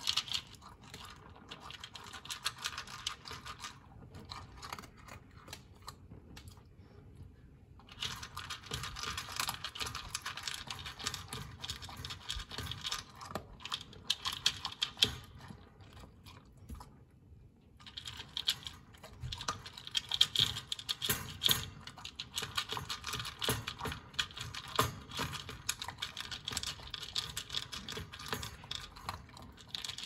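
An Australian Shepherd gobbling dry kibble from a slow-feeder bowl: rapid crunching, with pellets clattering against the bowl. The eating pauses briefly about seven seconds in and again around seventeen seconds.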